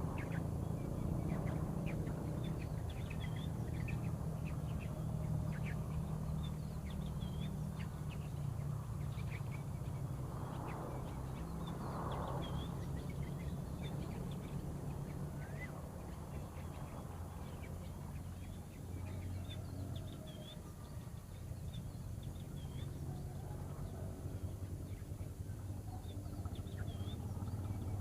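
Birds calling outdoors: many short high chirps scattered throughout, with two short lower calls about ten and twelve seconds in, over a steady low rumble.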